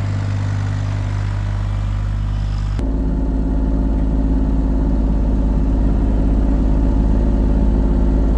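Bobcat excavator's diesel engine running steadily under load as it swings a tube around in the snow. About three seconds in, the sound cuts abruptly to a deeper, stronger engine drone that slowly gets louder.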